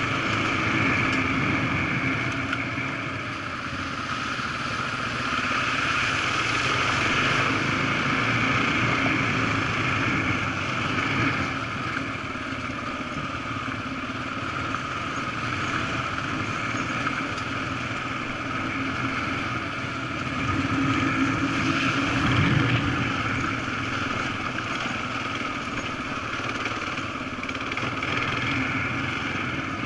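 Dual-sport motorcycle engine running along a rough dirt trail, its level rising and falling with the throttle, with a brief surge past the middle.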